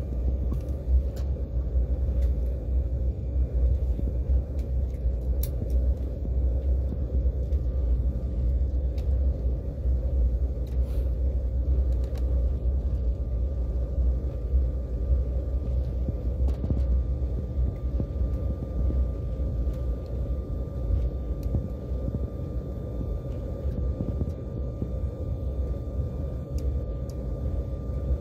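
Inside a jet airliner's cabin while it taxis: a steady low rumble from the engines and rolling wheels, with a faint steady whine above it.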